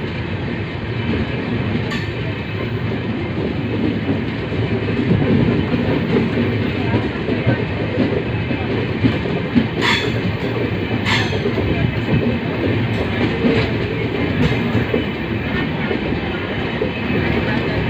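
Indian Railways passenger train running at speed, heard from the coach's open doorway: a loud, steady rumble of wheels on the rails with a few sharp clicks.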